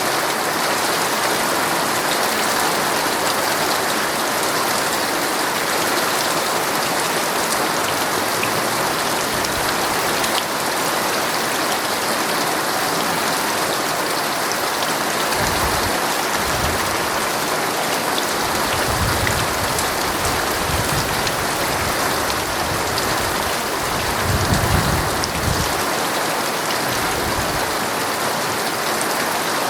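Heavy rain falling steadily on a tent's fabric. Low rumbles of thunder come in from about halfway through and are loudest a little before the end.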